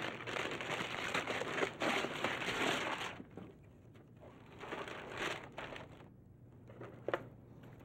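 Gift wrapping paper being torn and crumpled off a present, loudest in the first three seconds, then quieter rustling bursts as the box underneath is opened, with one short sharp click near the end.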